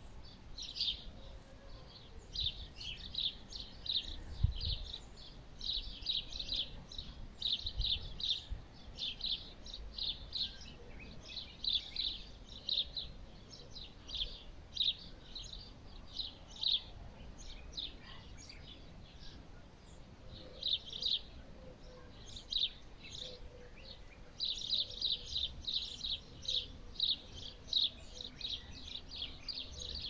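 Small birds chirping in quick runs of short, high calls, nearly without a break apart from a short lull past the middle. A low thump sounds about four and a half seconds in.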